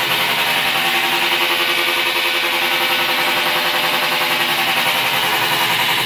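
Stackable top-loading washing machine running with its agitator turning, making a loud, steady, rattling racket. The noise comes from the transmission and motor assembly hanging crooked on broken spot welds and vibrating.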